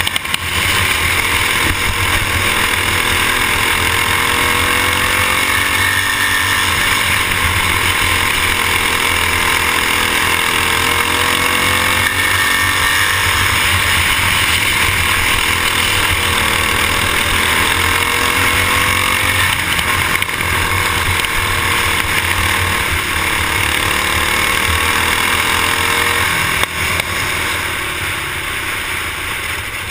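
Racing kart's single-cylinder engine running hard, its pitch rising and falling every few seconds, with heavy wind hiss on the microphone. The engine eases off near the end.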